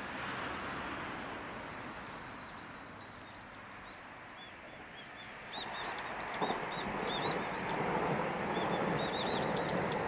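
Small birds chirping in short, high calls again and again. Just past halfway a steady rushing rumble sets in and slowly grows: a distant train rolling onto a long river bridge, with wind mixed in.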